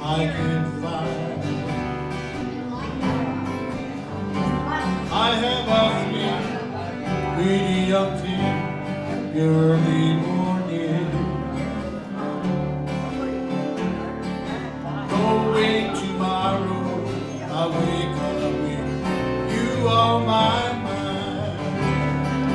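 Small live band of guitars playing a country tune: several strummed and picked guitars over a moving bass line.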